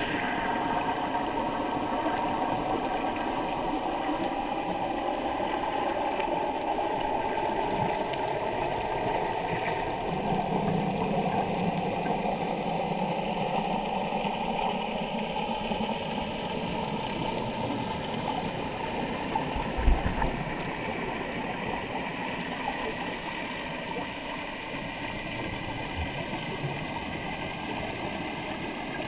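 Underwater ambience heard through a camera's housing: a steady wash of water noise with a faint motor hum slowly falling in pitch, and a single knock about two-thirds of the way through.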